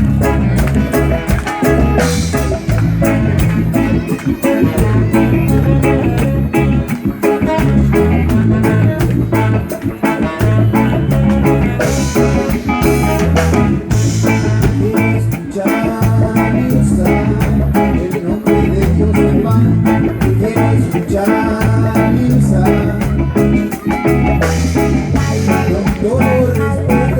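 Live band playing an upbeat song with guitar, bass guitar and drums, the bass pulsing steadily and cymbal crashes a few times.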